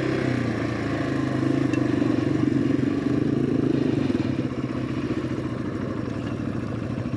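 Small single-cylinder dual-sport motorcycle engine running steadily under way, dipping slightly in pitch about a second in.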